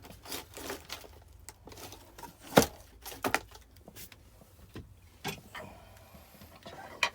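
A splitting axe and firewood logs being handled and set in place: about half a dozen separate wooden knocks and taps, the sharpest one about two and a half seconds in and another near the end.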